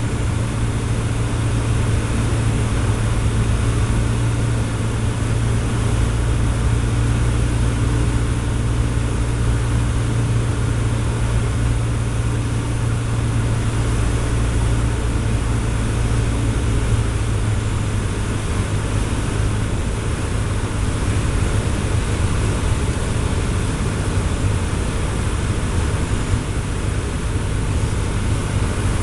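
Cessna 152's four-cylinder Lycoming piston engine and propeller running with a steady, loud drone in flight, easing slightly in level about two-thirds of the way through.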